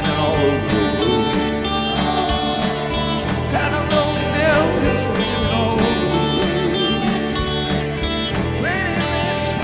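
Band music in an instrumental break of a slow country-blues song: guitars play over a steady drum beat, with a lead line that bends and wavers in pitch.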